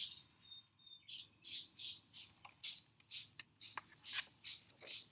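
A songbird chirping over and over, about three short high chirps a second, after a brief thin whistle near the start.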